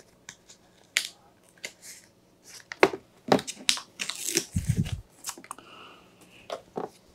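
Plastic wrapping being torn open and crinkled by hand as a shrink-wrapped game component is unpacked: scattered sharp crackles and clicks, with a denser crinkling stretch about four seconds in.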